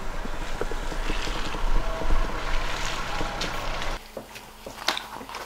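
Wind buffeting an outdoor microphone, a steady rumbling rush. It cuts off suddenly about four seconds in, leaving a quiet room with a few light clicks and rustles.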